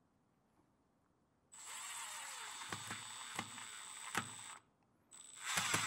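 Cordless drill/driver driving a 65 mm wood screw into stacked 2x6 lumber: the motor runs for about three seconds, starting about a second and a half in, stops briefly, then runs again louder near the end.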